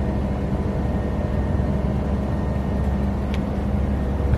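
Steady machine hum of a motor running, a low drone with a buzzing overtone; a faint small click about three seconds in.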